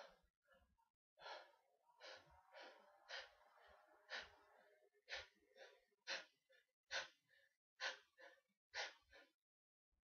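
A person gasping and sneezing: a run of short, sharp bursts of breath, irregular at first and then coming about once a second in the second half.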